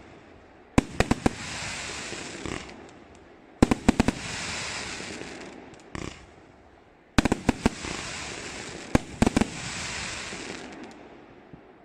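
A 30 mm-calibre consumer firework compound cake firing in volleys. Groups of sharp bangs come every couple of seconds, and each is followed by about two seconds of dense crackling as the effects burst. The last volleys of the cake die away near the end.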